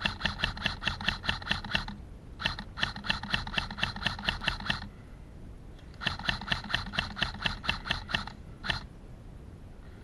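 Airsoft electric rifle firing three full-auto bursts of rapid, evenly spaced shots, each a couple of seconds long, with the gearbox motor humming under the clicks.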